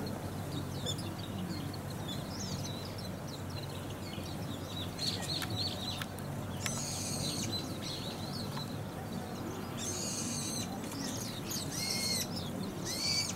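Small birds, Japanese white-eyes, calling in a blossoming cherry tree: a busy stream of thin, high chirps. From about seven seconds in, several louder, harsher calls come, each dropping in pitch. A steady low rumble runs underneath.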